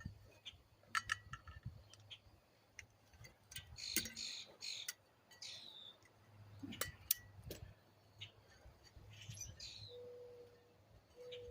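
Birds chirping, with scattered light clicks and knocks of work on the car.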